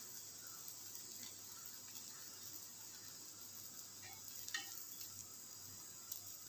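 Egg-coated bread frying on a flat griddle over low heat: a faint, steady sizzle, with a few light clicks a little after halfway and near the end.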